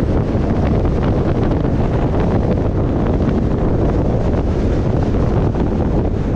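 Steady low wind rumble on the microphone mixed with road noise from a car driving along.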